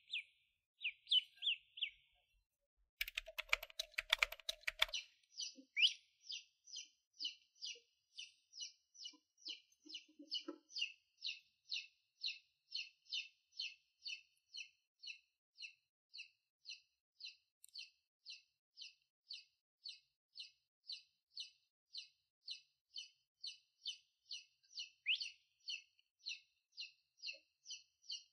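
A duckling peeping, high and thin: a few uneven peeps at first, then a very even run of about two peeps a second. About three seconds in, a short rattle of clicks lasts around two seconds.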